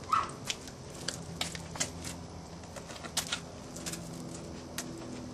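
Irregular light clicks and taps from Australian Terrier puppies moving about and playing, over a faint steady hum.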